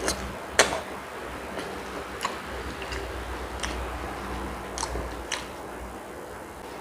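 Close-up chewing of linguiça sausage: irregular sharp mouth clicks and smacks, about eight of them, the loudest about half a second in, over a steady low hum.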